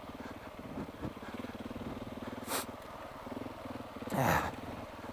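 KTM 690 single-cylinder motorcycle engine running steadily at low revs off-road. Two short, breathy bursts come about two and a half and four seconds in, typical of the rider's hard exhalations into the helmet.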